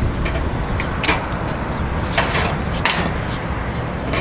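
Several short, sharp clicks and knocks, the loudest nearly three seconds in, over a steady low rumble.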